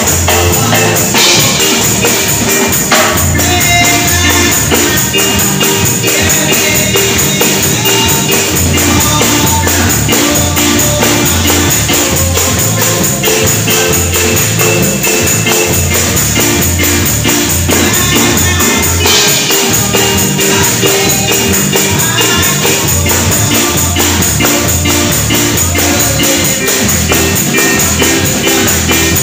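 Live gospel music with a tambourine jingling steadily over a repeating bass line, and a woman singing into a microphone through the church PA.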